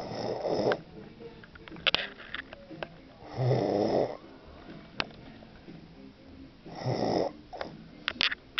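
A sleeper snoring: three long snores about three seconds apart, with short sharp clicks between them.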